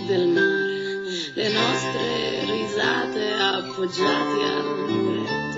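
Live acoustic pop music: an acoustic guitar strumming and picking the accompaniment.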